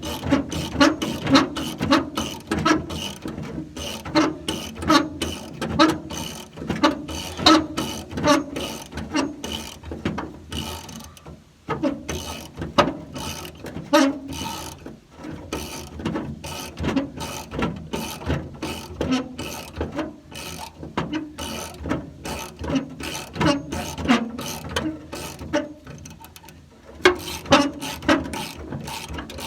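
Socket ratchet wrench clicking in quick runs as it turns out the Ford Ranger's T55 Torx bed bolts, with short pauses between runs.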